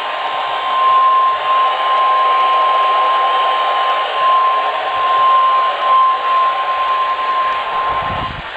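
NOAA Weather Radio warning alarm tone (the 1050 Hz alert tone) sounding during a Required Weekly Test: one long, steady high tone over radio static from a weather radio receiver. It cuts off shortly before the end.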